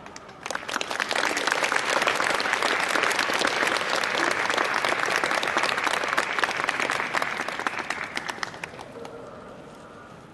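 Audience applauding. The clapping starts about half a second in and dies away after about eight seconds.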